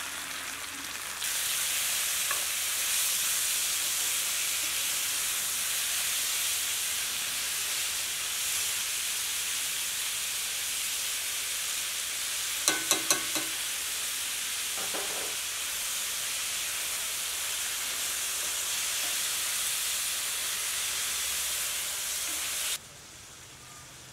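Raw boneless mutton with shallots and green chillies sizzling and frying in a hot cast-iron skillet, a steady hiss that gets louder about a second in and drops away sharply near the end. A few quick sharp taps about halfway through.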